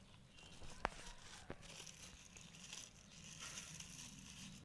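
Packaging being handled while unpacking: crinkling and rustling, with a sharp click about a second in and a weaker one soon after.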